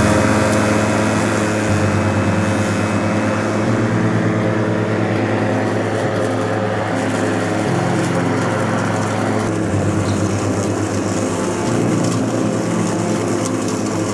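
Victa Twin 18V battery lawn mower, running on its 36-volt brushless motor and cutting grass as it is pushed. The steady hum shifts in tone every couple of seconds.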